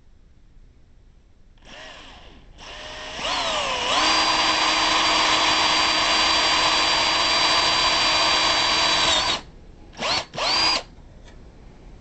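18-volt cordless Milwaukee drill boring holes through a metal awning support arm: a brief pulse, then the motor winds up to full speed and runs steadily for about five seconds before stopping, followed by two short bursts of the trigger.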